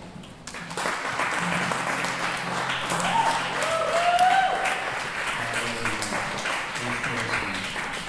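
Audience applauding after an acoustic song ends, starting about a second in, with someone whooping over the clapping a few seconds later.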